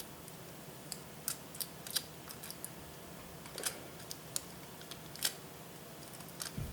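Scattered light clicks and crackles from sellotape being worked off a Wi-Fi antenna's thin copper tape by hand, short and irregular, about a dozen over several seconds.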